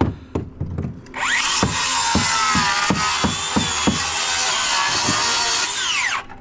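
Circular saw spinning up about a second in, cutting through wood for about five seconds, then winding down near the end. A few sharp knocks come before the cut.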